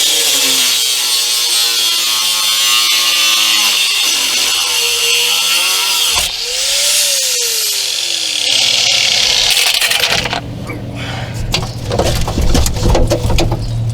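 Angle grinder cutting through the steel hanger that holds a spare tire, loud and hissing, its motor pitch sagging as the disc bites in. It pauses briefly about six seconds in and spins back up. It stops about ten seconds in and is followed by clattering knocks.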